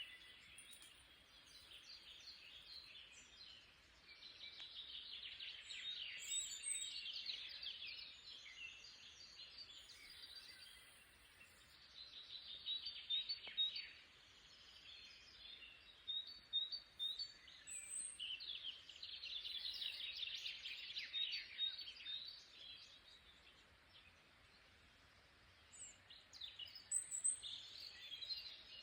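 Songbirds singing in repeated bouts of quick chirps and short whistles, with several birds overlapping, faint over a light background hiss.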